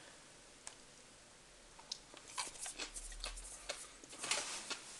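Faint mouth sounds of eating a cocoa-dusted chocolate truffle: soft wet clicks and chewing that begin about two seconds in.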